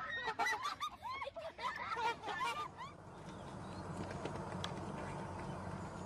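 Waterfowl honking in a rapid run of short calls, which stop about three seconds in. A steady low background rumble follows.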